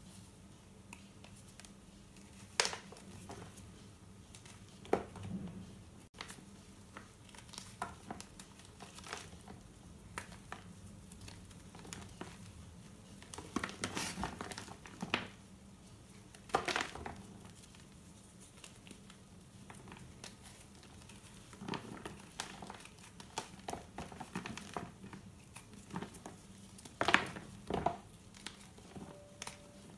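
Lumps of reformed gym chalk crushed and crumbled by hand, giving a gritty crunching with scattered sharper cracks as pieces break. The loudest cracks come about three seconds in and near the end.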